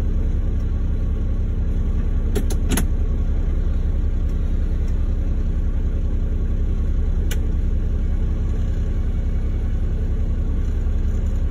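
Log truck's diesel engine idling steadily, heard inside the cab as a low rumble. Two sharp knocks come close together a couple of seconds in, and one more a little past halfway.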